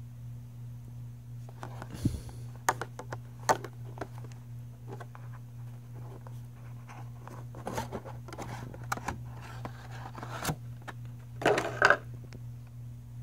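Hands handling a product box and its white insert tray: scattered clicks, taps and scrapes as the tray is slid out and turned over, with a louder scrape and rustle near the end. A steady low hum runs underneath.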